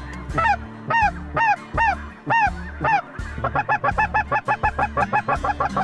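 Snow geese calling: high, yelping honks about two a second, then a fast run of shorter calls in the second half.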